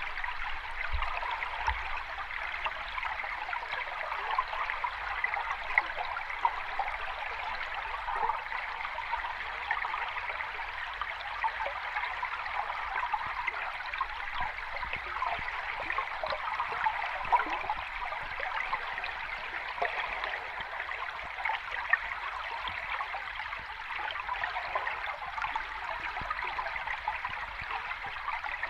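Flowing water of a small cascade: a steady babble with many brief splashes and gurgles.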